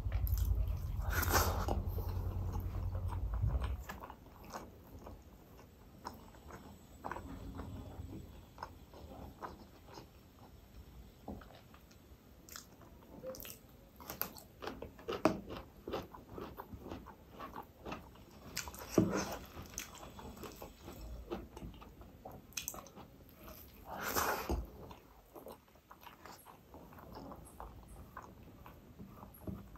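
Close-miked chewing and wet mouth sounds of a person eating rice and roast chicken by hand, with crisp crunches as he bites into raw cucumber. A low rumble sits under the first few seconds.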